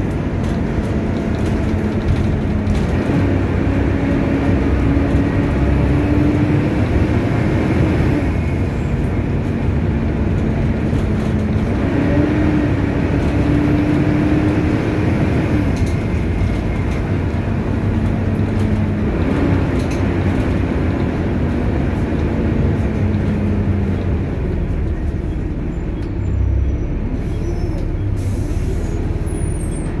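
Volvo B7TL double-decker bus driving, heard from the upper deck: its ZF automatic gearbox whines, a tone that steps up and slides back down several times as the bus speeds up and slows, over the drone of the Volvo D7C six-cylinder engine and its turbo hoovering, with road noise.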